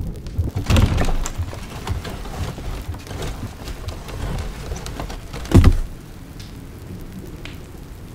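Sound-effects storm ambience: a steady patter like rain with low rumbling thumps. The heaviest thump comes about five and a half seconds in, and the patter carries on more quietly after it.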